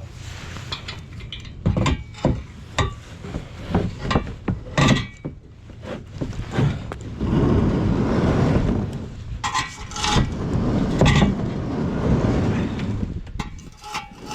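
Ice being struck and scraped by a hand tool: a run of sharp knocks, then longer grinding, crunching scrapes broken by further knocks.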